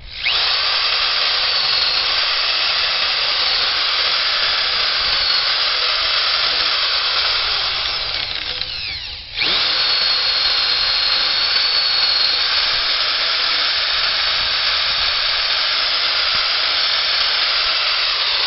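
Corded electric drill with a spade bit boring a countersink hole into a wooden beam. It runs steadily, sags and stops about nine seconds in, then starts again and runs on.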